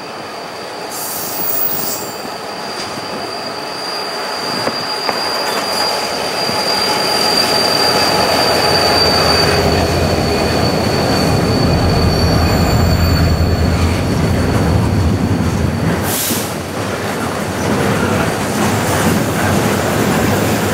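Freight train with diesel locomotives passing, its wheels giving a steady high squeal against the rails. A deep engine and wheel rumble grows louder from about six seconds in and eases after about fifteen seconds, with a brief sharp noise near sixteen seconds.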